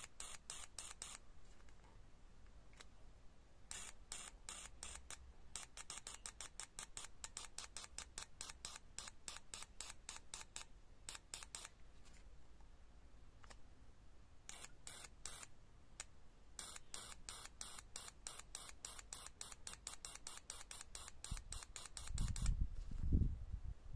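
Fuel injector's solenoid clicking open and shut as it is pulsed electrically through its wires for cleaning: trains of sharp clicks, several a second, in bursts broken by pauses of one to three seconds. A low rumble comes in near the end.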